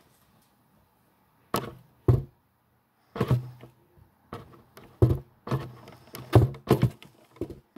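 About a dozen irregular knocks and thumps of close-up handling, starting about a second and a half in and coming faster toward the end, several with a short low ring after them.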